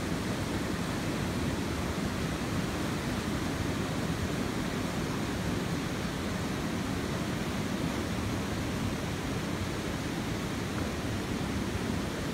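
Fast mountain river rushing over rocks: a steady, even roar of white water.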